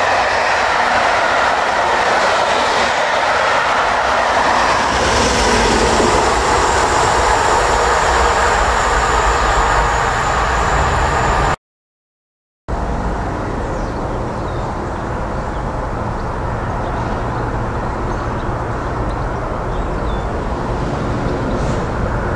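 Pullman coaching stock passing at speed on plain line: a steady rumble and rush of wheels on rail. After a cut, a diesel locomotive is heard working in the distance with a steady engine drone: a Class 67 with its two-stroke V12, approaching under power with exhaust smoke showing.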